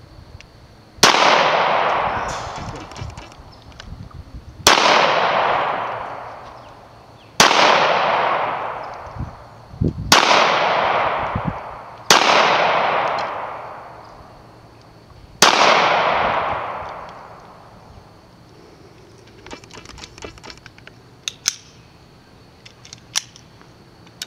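Six shots from a Polish P-64 pistol, a 9×18mm Makarov handgun, fired at an uneven pace about two to three seconds apart. Each sharp crack trails off in a long echo. A few light clicks follow near the end.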